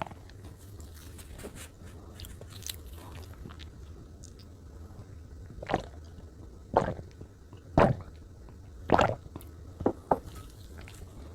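Close-miked chewing of soft chocolate cake: faint small mouth clicks, then about six louder wet smacks in the second half, over a steady low hum.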